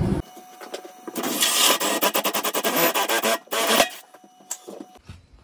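Cordless drill with a long wood bit boring a hole down through a kitchen worktop: a loud rasping cut with a rapid, even chatter for about two seconds. It stops abruptly about three and a half seconds in, followed by a sharp click and quieter running.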